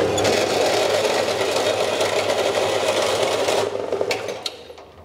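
Metal-cutting bandsaw sawing through a quarter-inch round bar of annealed bearing steel: a steady rasping cut over the hum of the motor. It stops a little under four seconds in and fades away. The blade is a coarse-toothed one that the sawyer says should have been finer for this thin stock, as it tends to catch on the last tooth as it breaks through.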